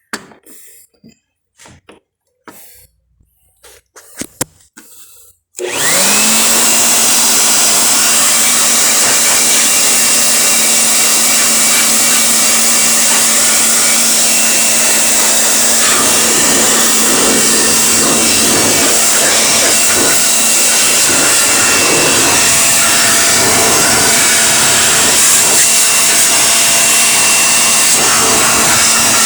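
A few faint clicks, then about six seconds in a high-speed electric cleaning machine switches on. It spins up quickly and runs steadily with a constant whine, used to clean a dust-clogged refrigerator condenser coil.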